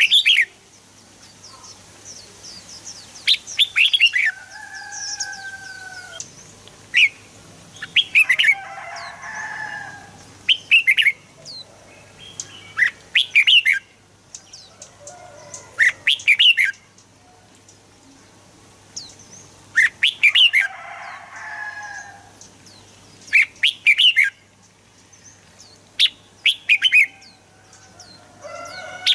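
Red-whiskered bulbul singing in short bursts of quick, sharp chirping notes every two or three seconds, several phrases sliding into lower warbled notes.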